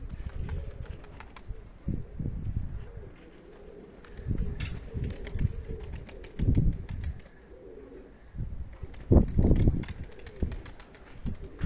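Domestic pigeons cooing, with gusts of strong wind buffeting the microphone in repeated low rumbles, loudest about nine seconds in.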